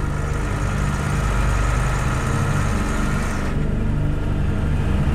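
Low, steady running of a towing vehicle's engine as a load on a wheeled trailer moves slowly, with a hiss over it that thins out about three and a half seconds in.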